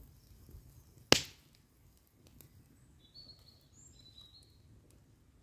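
A wood campfire giving one sharp pop about a second in, with a few faint high bird chirps a little later.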